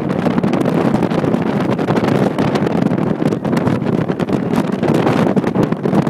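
Wind buffeting an iPhone's microphone: a loud, unbroken rumble that flutters constantly.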